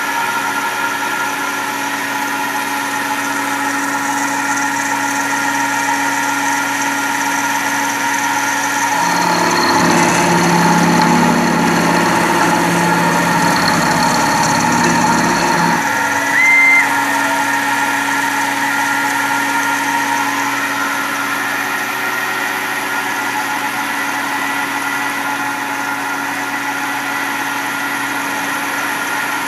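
CNC vertical milling machine with a Fanuc AC spindle motor, running and cutting metal with an end mill: a steady hum and whine. From about a third of the way in to just past halfway the cut is louder and rougher, and a brief high tone follows just after.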